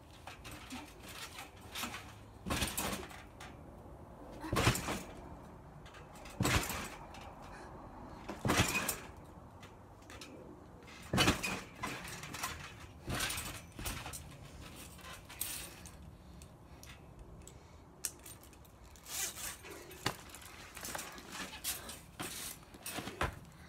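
Spring trampoline being jumped on: a thud with a metallic jangle at each landing on the mat, about every two seconds.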